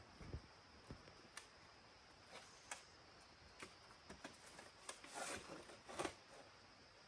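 Faint scattered clicks and taps, with a brief rustle about five seconds in and a sharper tick just after, over a faint steady high hiss.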